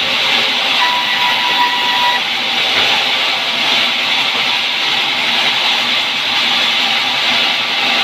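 Band sawmill running with a loud, steady hiss as a pine log is fed along the carriage through the band saw blade. A thin, steady whine sits on top of it for the first two seconds.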